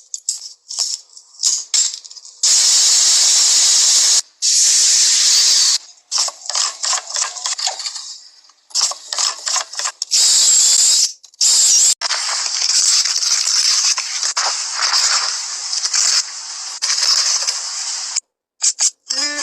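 A hissing noise that comes in stretches of a second or more, broken by short gaps and runs of quick bursts.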